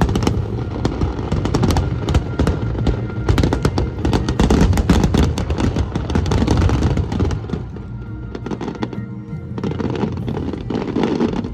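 Fireworks finale: a dense, rapid barrage of bursts and crackling over loud background music, the bangs thinning out after about seven seconds.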